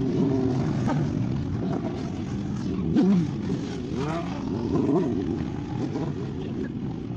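Motorcycle engines revving, their pitch rising and falling over and over as the riders ride stunts, over a steady engine drone.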